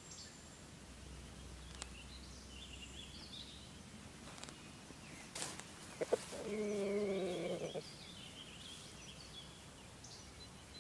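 Quiet outdoor ambience with faint distant songbirds chirping. About six seconds in come two short clicks, then a low wavering call lasting just over a second.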